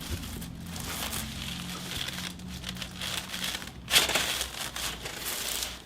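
Crinkling and rustling as a patient shifts on his back on a chiropractic treatment table, then one sharp, loud crack about four seconds in as the spinal adjustment thrust is delivered.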